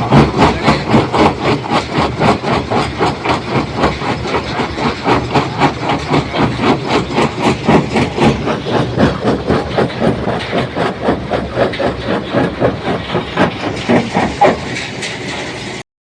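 Stone crusher plant machinery running with a rapid, even clatter of about four beats a second, easing into a steadier run about 14 seconds in.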